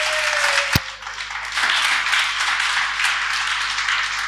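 A congregation applauding, a dense run of clapping that starts to thin out near the end. A single sharp knock stands out about a second in.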